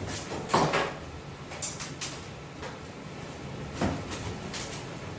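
Wooden lath slats being pried off the wall studs, creaking and cracking in about five short bursts.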